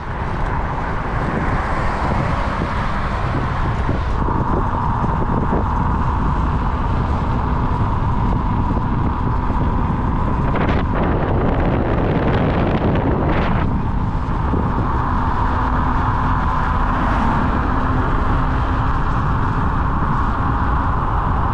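Wind buffeting the microphone of a camera on a moving bicycle, over steady road noise. About halfway through there is a louder rush lasting a few seconds.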